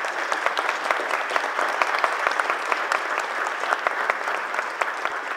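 Audience applauding steadily, a dense patter of hand claps with single sharp claps from nearby hands standing out, easing a little near the end.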